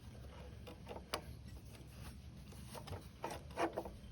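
A few light clicks and knocks of the motorcycle's rear wheel, axle and spacer being worked into place: one about a second in and a quick cluster a little past three seconds.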